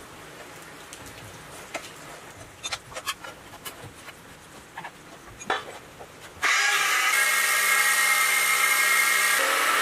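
Scattered light clicks and knocks as the miter saw is handled and a new blade fitted, then about six and a half seconds in an electric miter saw with an abrasive cut-off disc starts cutting steel pipe: a sudden, loud, steady grinding whine with several tones at once.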